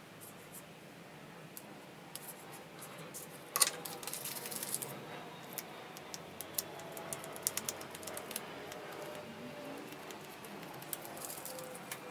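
Scattered light clicks, taps and scratches of a pointed hand tool scraping and tapping on a spray-painted picture. A sharper click about three and a half seconds in is followed by a brief hiss.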